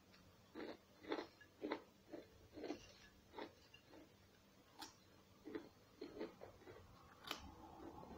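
Faint chewing of crunchy snack chips, in short irregular crunches about one or two a second, with two sharper crisp cracks partway through.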